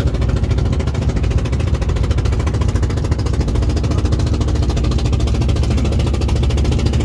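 Robin 13-horsepower engine of a small wooden outrigger boat running steadily under way, an even, fast firing beat that holds the same pace throughout.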